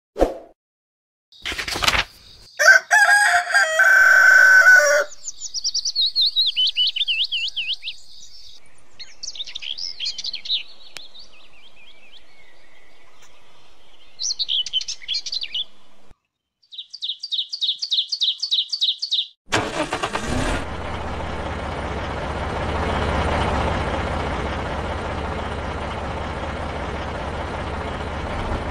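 A rooster crows, then songbirds chirp and trill in several short bursts. About twenty seconds in, a steady low rumble with hiss sets in.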